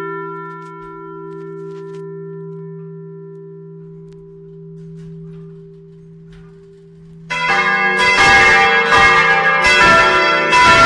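A church bell's low hum slowly dies away after its last stroke. Then, about seven seconds in, the tower bells start ringing loudly with rapid overlapping strokes, several bells sounding together.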